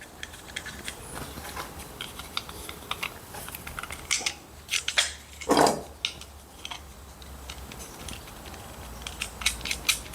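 Small screws, flat washers and 3D-printed plastic connectors being handled and fitted together: scattered light clicks and taps, with one louder brief scrape about five and a half seconds in, over a low steady hum.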